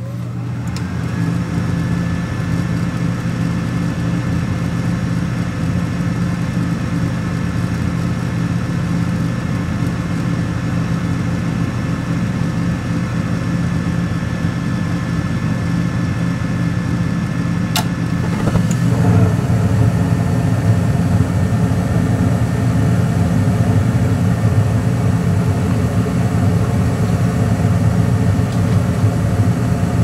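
Gas furnace's draft inducer motor running with a steady hum and a faint high whine. About 18 seconds in, a sharp click and a brief swell of noise as the burners light off the hot surface igniter. The flame and the inducer then run on a little louder: the furnace is now lighting normally.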